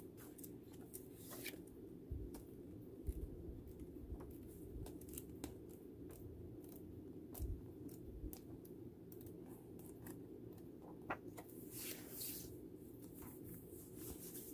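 Paper pages of old magazines and programs being turned and flipped, with rustles, soft crackles and a few low thumps as the booklets are handled, a louder swish about twelve seconds in. A faint steady low hum runs underneath.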